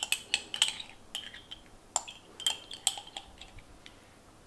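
Scattered light clinks and taps of kitchenware against a stainless steel mixing bowl as creamed horseradish is tipped out of a cup onto cream cheese. The taps come in irregular clusters and thin out towards the end.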